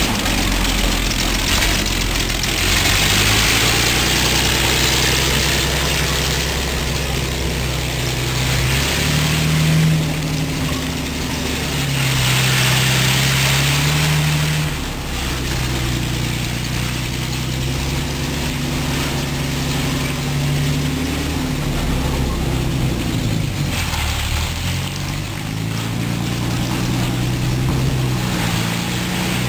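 Panther tank's Maybach V12 petrol engine running as the tank drives off, its note stepping up and down with the revs and growing a little fainter about halfway through.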